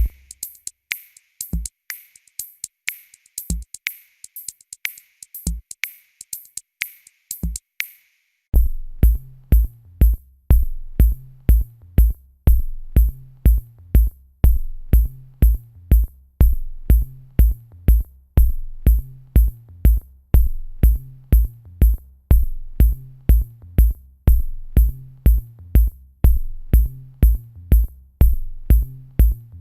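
Background electronic music with a drum-machine beat: sparse hi-hats and claps at first, then from about eight seconds in a steady kick drum and bass line join in.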